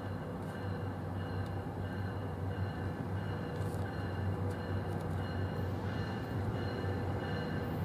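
Approaching commuter train running with a steady low hum that slowly grows louder. A faint high tone repeats about every two-thirds of a second over it.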